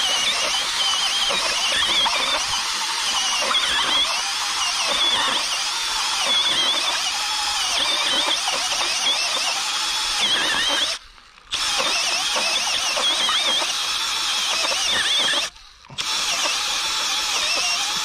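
Cordless drill turning a 3-inch cutter into a tree trunk, its motor whine wavering as the bit bites into the wood and throws out chips. The drill stops briefly twice, once about two-thirds of the way through and again shortly after, then runs on.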